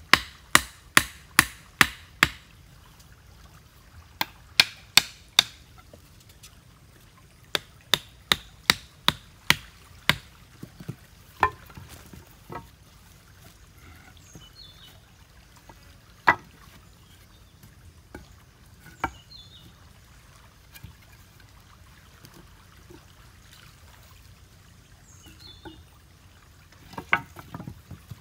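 Repeated sharp chopping or knocking strikes in quick runs of about three a second, thinning out to single strikes after about ten seconds, with flowing water faintly behind.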